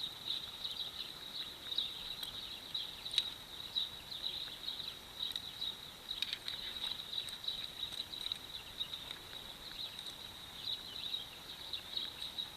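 Insects chirping steadily in a high, even-pitched, pulsing trill, with a few faint clicks.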